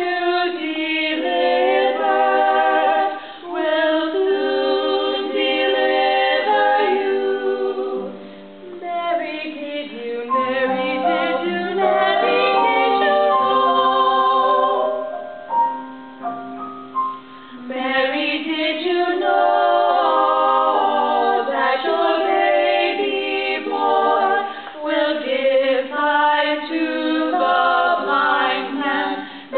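Several women's voices singing a slow song together in harmony, accompanied by a Yamaha electronic keyboard. The singing softens briefly between phrases, about a quarter and half of the way through.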